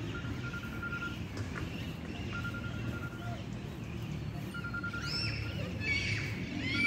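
Open-air park ambience: a rapid trill at one steady pitch, about a second long, repeats about every two seconds over a low steady rumble. Near the end, high squealing voices rise and fall.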